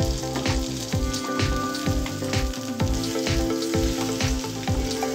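Eggs and onion masala sizzling in oil in a non-stick pan as a wooden spatula breaks them up and stirs them. Background music with a steady beat runs underneath.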